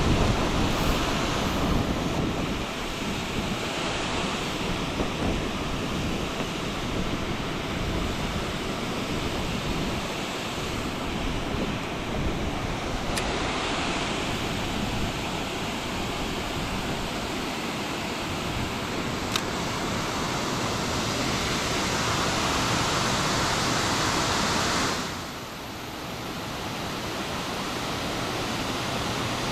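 Steady rush of flowing creek water, dropping briefly in level near the end.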